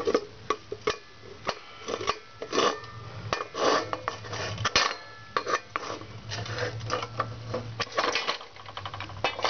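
Metal clinks and clanks as a metal ingot mold is gripped with pliers, turned over and knocked about in a metal pan to free a freshly cast gold bar, with a sharper knock about halfway through.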